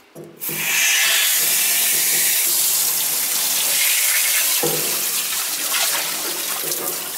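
Garden hose spraying water into the water pan of a hot 275-gallon smoker: a steady rushing hiss of water that starts about half a second in.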